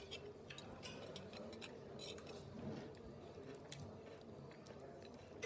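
Faint light clinks and scrapes of a metal fork and spoon twirling spaghetti against a plate, scattered irregularly over a low background murmur.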